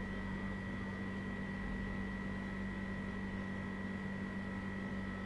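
Steady electrical hum and hiss with a faint high whine, unchanging throughout and with no clicks or other events.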